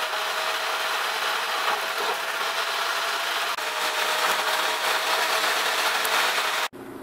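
Car cabin road and engine noise played fast-forward, turned into a steady, high whirring hiss with faint held tones. It cuts off abruptly near the end to quieter cabin sound.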